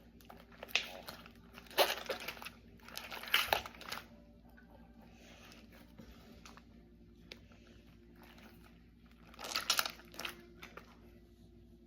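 Wet slime being squished and kneaded by hand, with crackly squelching bursts through the first four seconds and again about ten seconds in.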